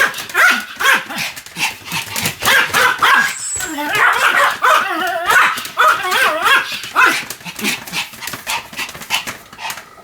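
Pomeranian barking and yapping in rapid, high-pitched, wavering calls, several a second, thinning out near the end.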